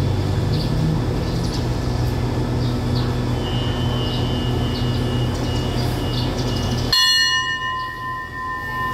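Steady low rumble of the standing train's diesel locomotive idling at the platform. About seven seconds in, a loud, steady bell-like ringing starts suddenly and keeps sounding.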